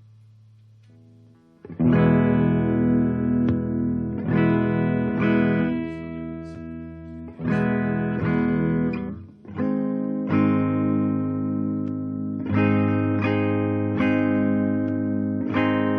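Electric guitar played through a transistor boost circuit into an amplifier. A few quiet notes open it, then loud strummed chords start about two seconds in and are struck every second or two, each left to ring.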